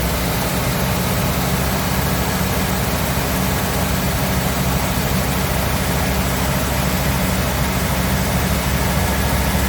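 2006 Ford Econoline's V10 engine running at a steady speed, with a misfire on cylinder 6.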